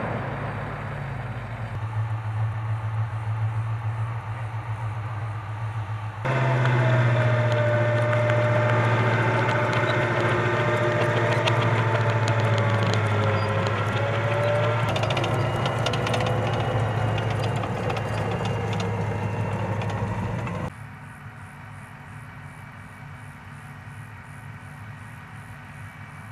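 An M2 Bradley Fighting Vehicle's diesel engine running steadily with a low hum. It gets abruptly louder at about six seconds, with a wavering whine over the hum, and drops back to a quieter hum at about twenty-one seconds.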